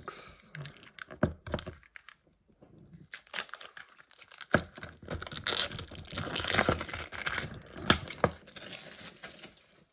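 Small toy box packaging being torn open and crinkled by hand: a few light clicks and taps, a short pause, then several seconds of continuous tearing and crinkling broken by a few sharp snaps.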